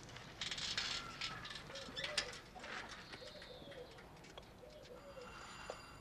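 Pigeons cooing, several low cooing calls one after another, with birdsong chirping behind them. There is some rattling and a few sharp clicks in the first couple of seconds.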